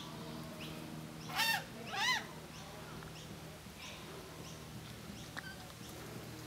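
A bird gives two loud calls about a second and a half in, each a short note that rises then falls, half a second apart. Fainter short chirps from other birds come and go over a low steady hum.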